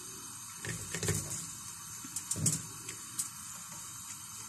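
Fresh fir tips pressed down by hand into water in a stainless steel pot: soft rustling and wet handling noises, strongest about a second in and again about two and a half seconds in.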